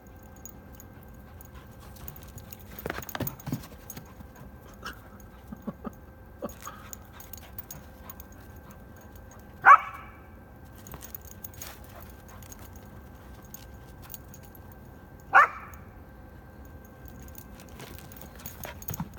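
Goldendoodle puppy barking: two short, sharp barks about six seconds apart, with a cluster of quieter sounds about three seconds in.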